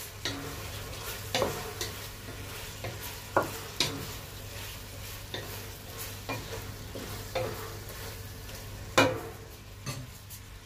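Wooden spoon stirring vegetables and meat sautéing in an enamelled pot, knocking and scraping against the pot at irregular moments over a steady sizzle. The loudest knock comes about nine seconds in.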